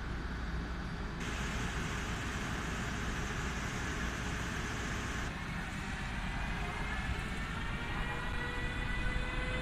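Siemens Vectron electric locomotive pulling away: a steady hiss from about a second in that cuts off abruptly around five seconds, then the whine of its traction drive rising slowly in pitch as it gathers speed, over a low steady rumble.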